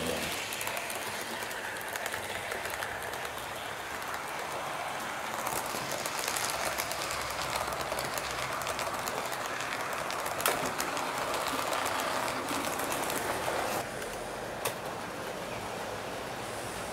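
Model train running along the layout track: a steady rolling rumble of wheels on rail, with a sharp click about ten seconds in, that drops away suddenly about fourteen seconds in.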